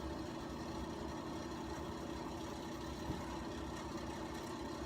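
A steady low mechanical hum, like a fan or appliance running, with one faint click about three seconds in.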